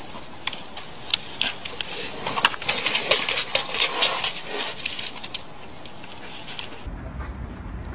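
Sharp clicks and crackles of dry twigs and forest litter under running animals, thickest a few seconds in. Near the end a steady low rumble takes over.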